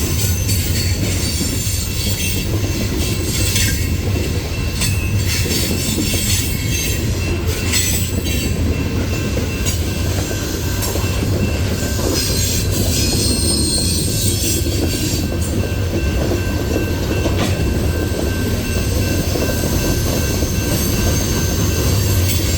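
Loaded coal hopper cars of a freight train rolling past on a curve: a steady heavy rumble, with wheels squealing high and thin against the curved rail, loudest about thirteen to fifteen seconds in, and scattered clacks of wheels over the rail.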